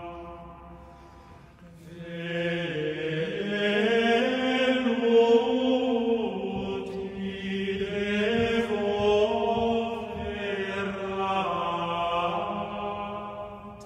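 Slow chanted vocal music: long held sung notes that glide gently from one pitch to the next. It swells in about two seconds in and thins out near the end.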